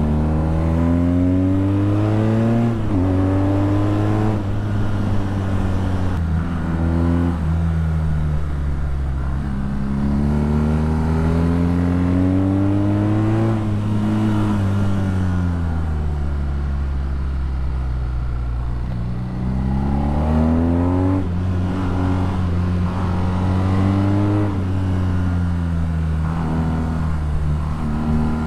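BMW R nineT's 1170 cc boxer twin through an Akrapovič exhaust, accelerating hard through the gears, its pitch rising and dropping at each upshift. About halfway it rolls off with the pitch falling for several seconds, then pulls through the gears again.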